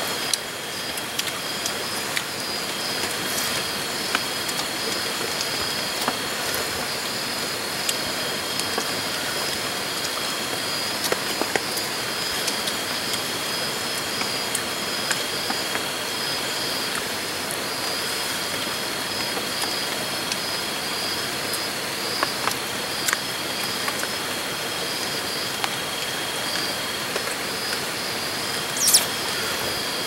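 Steady chorus of night insects, with high, continuous trills that break off and resume. Scattered light clicks and clinks of metal spoons against pots come through it, and there is one sharper clink near the end.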